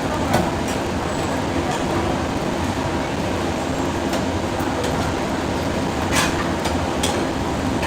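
Busy street-food market ambience: a steady hubbub with faint background voices and a low rumble, broken by a few sharp clicks and clinks, the loudest about six seconds in.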